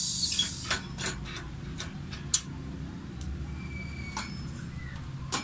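A butane canister being fitted into the cartridge compartment of a Tiger Head portable gas stove. There is a brief hiss right at the start, then a string of sharp clicks and clinks of metal and plastic, the loudest about two seconds in.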